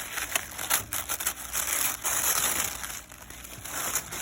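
Packaging crinkling and rustling as a subscription box of hair products is unpacked by hand, with irregular crackles and small knocks.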